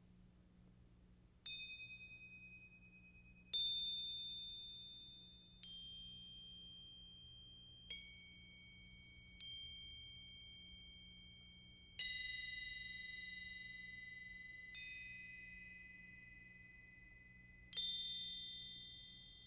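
Slow, sparse percussion music: eight single high, bell-like notes struck one at a time on tuned metal percussion, roughly one every two seconds, each left to ring and fade.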